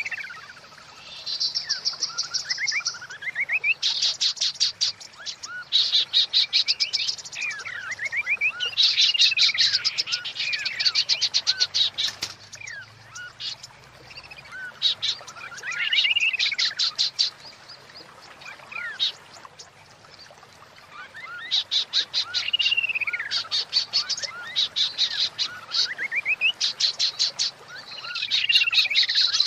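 Female white-rumped shama (murai batu) calling: phrases of fast, dry rattling chatter alternate with clear arching whistles that rise and fall, repeated over and over. These are the female's calls played to bring a male shama into breeding condition.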